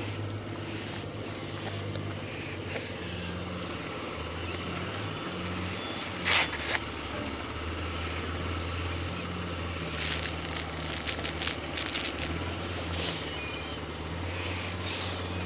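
Domestic cat purring right at the microphone, a steady low rumble that swells and eases every second or two with its breathing. A brief loud rustle of fur comes about six seconds in.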